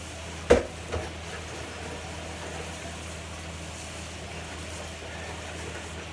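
A wok clanks sharply against the kitchen sink about half a second in, with a lighter knock just after, over a steady low hum and hiss.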